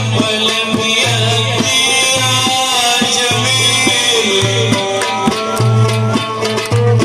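Live Egyptian Saidi folk music through a loud PA: a male singer's voice over a band with a steady drum beat and a repeating bass line.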